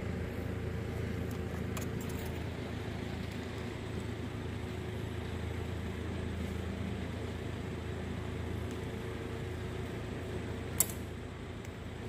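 Steady low hum of workshop background noise, with one sharp click near the end.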